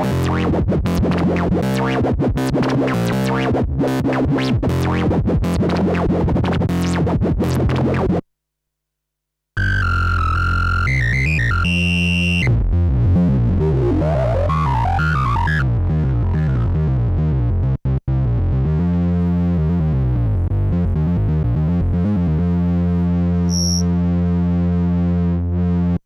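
Korg Monologue monophonic analog synthesizer playing a fast sequenced pattern that stops suddenly about eight seconds in. After a second of silence, a new bass pattern starts, with a high tone stepping and gliding up and down in pitch over it. This settles into a steady repeating bass line that cuts off at the end.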